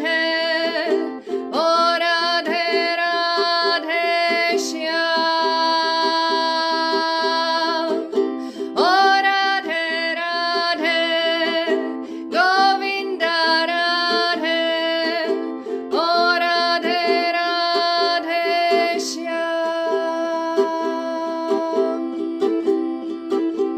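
Calm music: steady rhythmic strumming on a small plucked-string instrument, with a melody of long held, wavering notes above it that slide up into each new phrase every few seconds.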